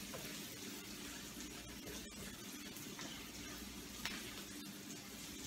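Onions sizzling steadily as they brown in hot oil in a pan, the first stage of a gravy, with one light tap about four seconds in.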